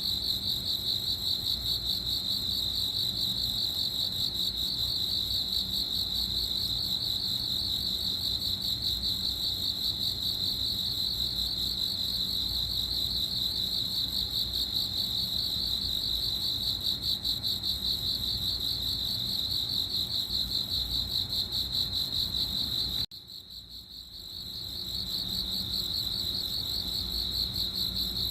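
Crickets chirping: a steady, high, rapidly pulsing trill. About 23 seconds in it cuts out abruptly and fades back in over a second or so.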